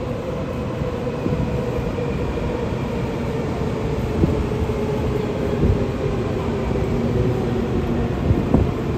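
Steady hum and rumble of a Taiwan High Speed Rail 700T trainset, with a few faint knocks.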